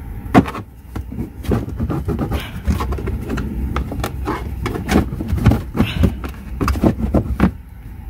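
Plastic trim cover in a Toyota Prius cargo area being worked loose by hand against its locking clip: repeated plastic clicks, knocks and rattles, with a sharp click about half a second in. A steady low hum runs underneath, the hybrid battery's cooling fan running.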